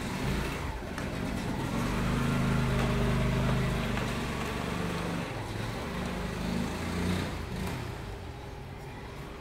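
A motor vehicle's engine passing by, building over a couple of seconds and then fading away.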